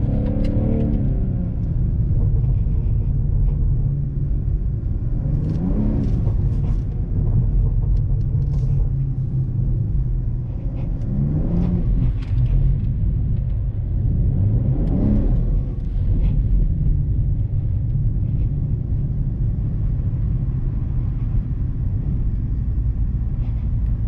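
BMW M340i's turbocharged 3.0-litre straight-six and its winter tyres in snow, heard from inside the car: a steady low rumble while driving, with the engine revving up and easing off three times.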